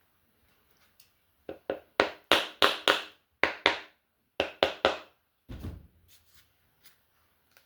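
About a dozen sharp knocks in quick, uneven succession, each with a short ring, followed by a duller thump a little later.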